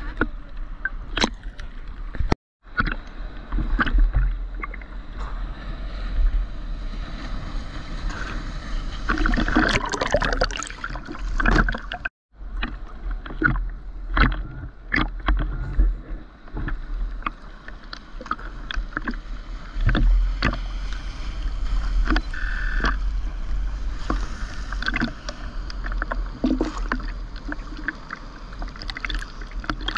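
Sea water sloshing and lapping against a GoPro in its waterproof housing held at the surface, with a steady low rumble and many small splashes and knocks. The sound cuts out briefly twice, near the start and about twelve seconds in.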